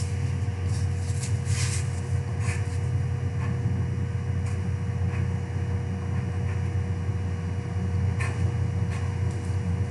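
A steady low hum with a thin steady tone above it, and now and then faint scratches of a pencil drawing on paper.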